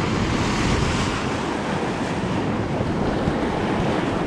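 Salmon River running high, about 47,000 cubic feet per second, rushing and churning around a drifting raft, with wind buffeting the microphone.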